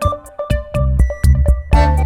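Background music: an electronic instrumental track with a steady beat of bass notes and short keyboard-like melody notes.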